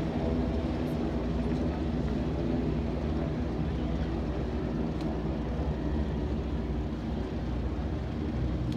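Steady drone of propeller-driven aircraft engines, with no sudden events.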